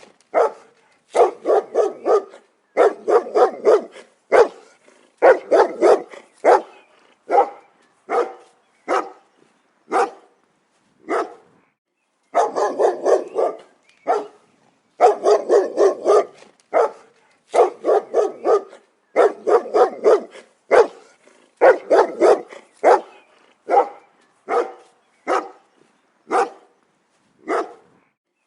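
A dog barking in quick volleys of several barks, with single barks in the pauses between volleys.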